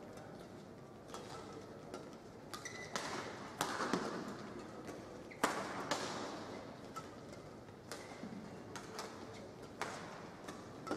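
Badminton rally: rackets striking the shuttlecock in sharp smacks every second or so, with a few short shoe squeaks on the court floor over a low hall murmur.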